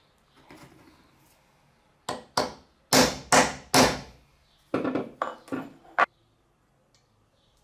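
Hammer striking a center punch held on the end of a cut-off steel bolt clamped in a bench vise, punching a mark for drilling. Sharp metallic taps, each ringing briefly: five in the first group, the last three loudest, then four more after a short pause.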